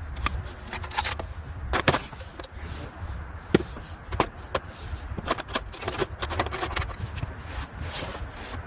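Hand tools working on metal in a cramped engine bay: irregular clicks, clinks and knocks with some scraping, over a steady low rumble.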